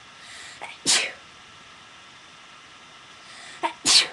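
A person sneezing twice, about three seconds apart, each sneeze coming after a short breathy build-up. These are allergy sneezes.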